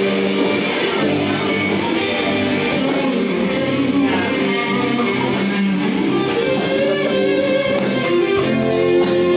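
Live rock band playing, electric guitars over a steady beat.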